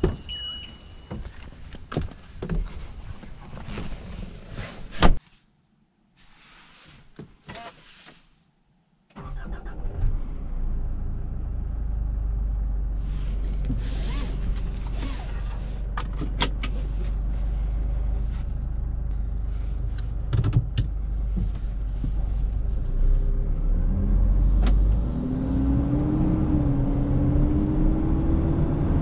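Door of a Nissan Navara pickup opened, with clicks and a short beep, then shut with a loud thump about five seconds in, followed by a few seconds of near silence in the closed cab. About nine seconds in, the 2.5-litre four-cylinder diesel starts and settles into a steady idle. Near the end its note rises in steps as the pickup drives off.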